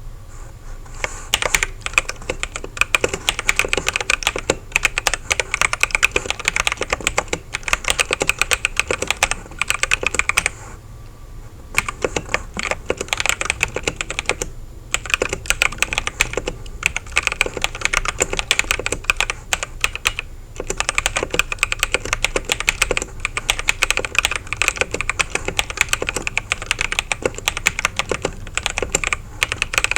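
Fast, continuous typing on a Camiysn MageGee Light84 mechanical keyboard with its stock clear switches, which the owner suspects are the equivalent of brown tactile switches. The keystrokes start about a second in and pause briefly three times, near 11, 15 and 21 seconds in.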